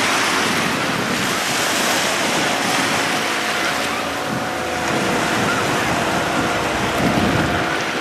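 Sea water rushing and splashing with wind buffeting the microphone, over a faint steady motorboat engine hum.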